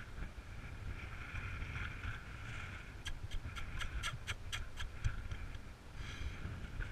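Wind buffeting the microphone in a steady low rumble. In the middle there is a quick run of about eight sharp ticks, roughly four a second.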